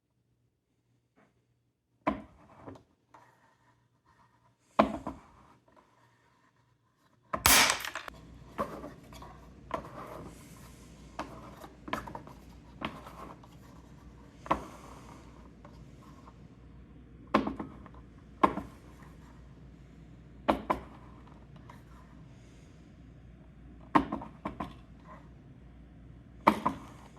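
Irregular sharp knocks and clatters of small hard objects being handled and set down on a hard surface, the loudest about seven seconds in. A faint steady low hum starts at that same moment.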